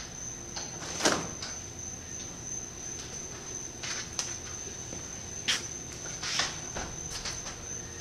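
Bare hands and feet thudding and scuffing on a thin floor mat during cartwheels: a few separate knocks, the strongest about a second in, more around the middle. A steady high-pitched whine runs underneath.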